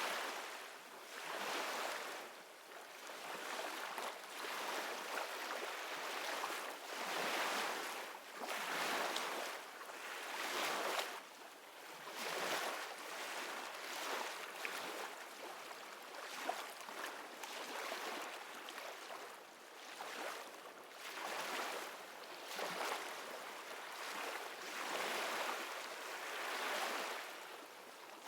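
Ocean waves used as an ambient background: a hiss of surf that swells and falls every couple of seconds.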